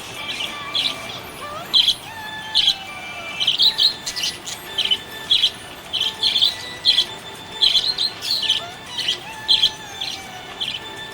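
Pet budgies chirping: a run of short, sharp, high chirps, roughly one or two a second, with fainter gliding whistles underneath.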